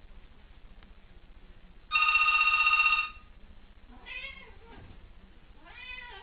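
A telephone rings once for about a second, then a cat meows twice.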